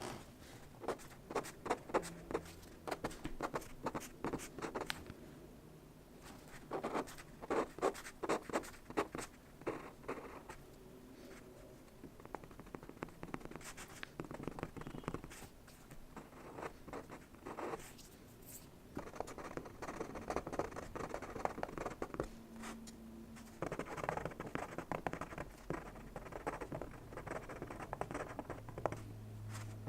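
Pen scratching across Bristol drawing paper in quick strokes while sketching. The strokes come in bursts of a few seconds with short pauses between them.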